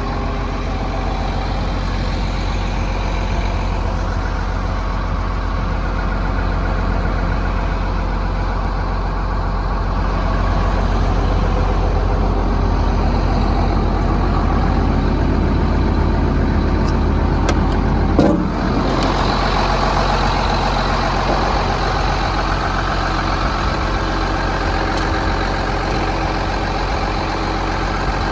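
Diesel engine of a 2006 Case CX330 excavator running steadily at idle, with a short knock about two-thirds of the way through.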